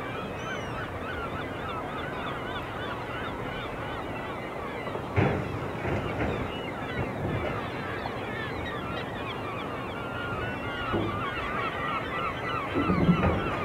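A large flock of common eiders calling together: many short rising-and-falling calls overlap in a dense, continuous chorus. A brief knock comes about five seconds in, and a louder, lower sound near the end.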